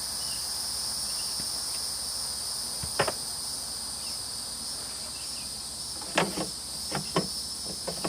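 Crickets chirring steadily, with sharp plastic clicks and snaps once about 3 seconds in and several more in the last couple of seconds, fitting the third brake light's interior trim cover being pressed back onto its clips.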